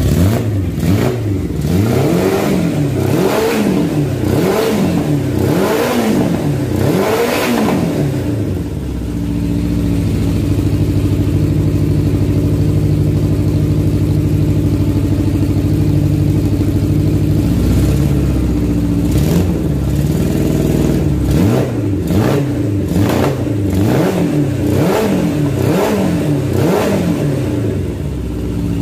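Four-cylinder motorcycle engine, swapped in for the Honda Megapro's standard single, running on its sound check. The throttle is blipped about once a second, each rev rising and falling, then the engine settles to a steady idle for several seconds before a second run of blips starts about halfway through.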